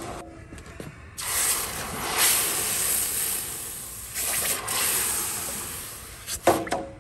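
Hot aluminium bronze ingot quenched in a water tank while held in tongs: the water hisses and sizzles as it boils against the metal, swelling several times. Near the end there are a couple of ringing metallic clanks.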